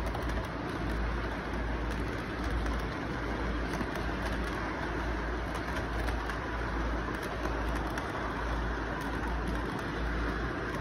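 Model freight train cars rolling past on the track: a steady rumble with scattered light clicks, under constant background noise.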